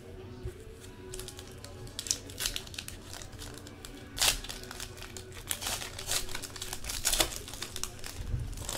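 A foil trading-card pack wrapper crinkling and tearing in irregular bursts as it is ripped open by hand, strongest about four seconds in and again near seven seconds. Faint background music runs underneath.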